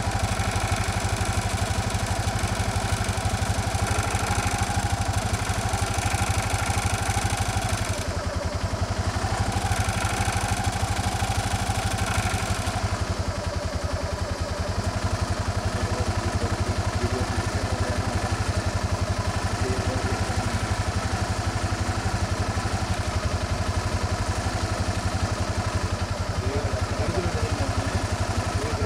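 Vehicle engine idling steadily, a low even running throughout.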